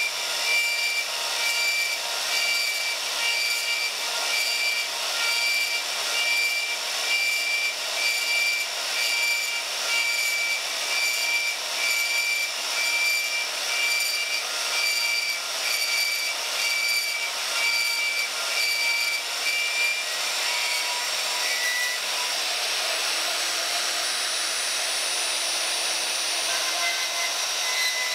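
Vertical bandsaw cutting through a cast iron bar, the blade sawing off a slice with a regular pulse about once a second. About two-thirds of the way through the pulsing stops and the saw runs on steadily.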